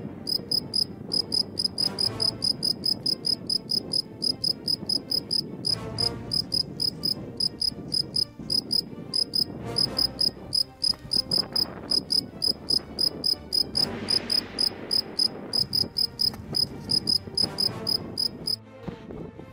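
Cricket chirping in an even, quick series, about three to four chirps a second, over a low rushing background. The chirping cuts off suddenly near the end.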